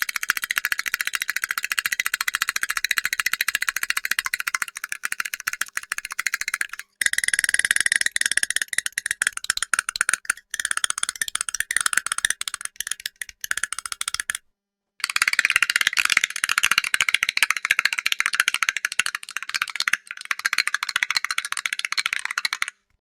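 Cartoon teeth-chatter sound effect: very rapid, high, thin clicking like teeth rattling together in a shiver, in several runs broken by short breaks, the longest a little past halfway.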